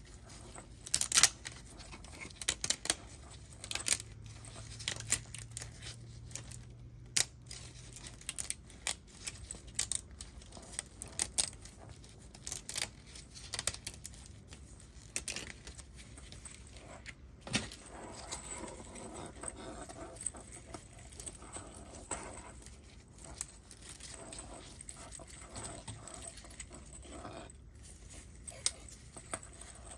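Print-in-place articulated PLA+ dragon flexed in gloved hands, its many printed segments and scales clicking and rattling against each other in quick irregular clusters.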